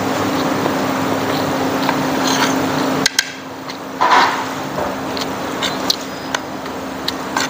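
Metal spoon and fork clinking and scraping against a plate, with several sharp clinks in the second half. A steady hum runs underneath and cuts off abruptly about three seconds in.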